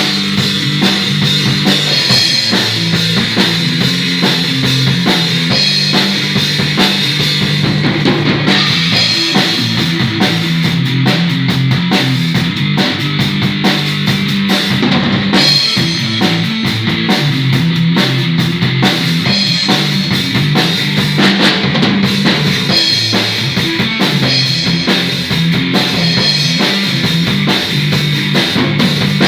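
Drum kit and guitar playing a rock-style jam together, with a steady beat and sustained low notes.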